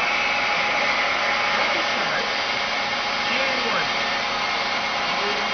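CNC vertical milling machine's spindle and cutter machining a metal workpiece: a steady whir with a few steady high tones that does not change.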